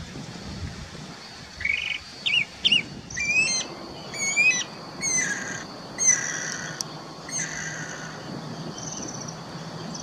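Guira cuckoo (anu-branco) calling: a run of loud whistled notes, some sweeping in pitch and some trilled, repeated about once a second. The notes start a little before two seconds in and stop about eight seconds in.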